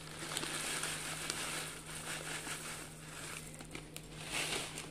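Dry bhel puri mix of puffed rice, sev, peanuts and peas pouring from a plastic packet into a glass bowl: a continuous rustling patter of light grains with many small clicks, with the packet crinkling.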